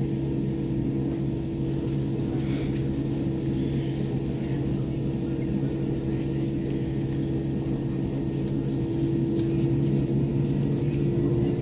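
Cabin noise of an Airbus A321-231 with IAE V2500 turbofan engines running steadily at low power: an even rumble with two steady humming tones, a little louder near the end.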